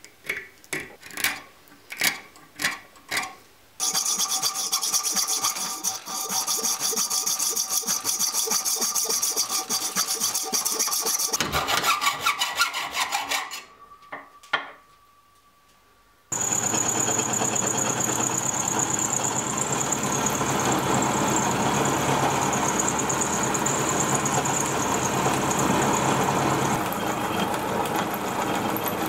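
A steel scriber scratches a few short marks on a mild steel bar. Then the bar is cut at the vise with a steady rasping for several seconds, followed by a short rougher stretch. After a brief pause, a mini vertical mill starts cutting a step into the mild steel with an end mill, running steadily with a high whine.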